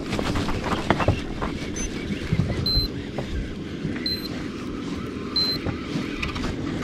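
Small inflatable boat rocking on the sea: a steady rumble of water and wind on the microphone, with scattered knocks, strongest about a second in. Three short, high electronic beeps sound about a second and a half apart from the middle on.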